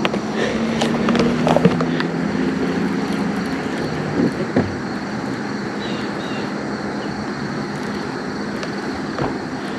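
Steady rushing noise from a fishing boat on the water, with a low hum over the first three seconds or so and a few scattered clicks and knocks.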